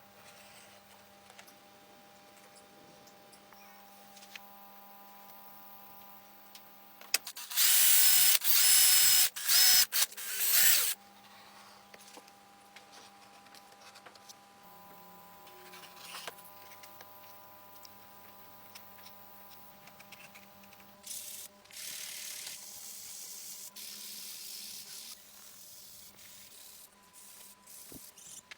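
Handheld power tool running in several short, loud bursts with a high whine, a few seconds in; later a quieter stretch of the tool working for about four seconds.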